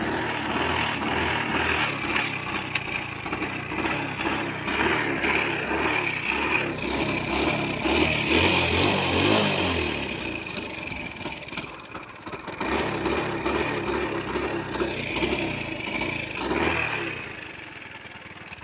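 Hero Honda Splendor's single-cylinder four-stroke engine running on hand sanitizer fed into its air intake. The throttle is blipped up and down several times, and the engine settles to a quieter idle near the end.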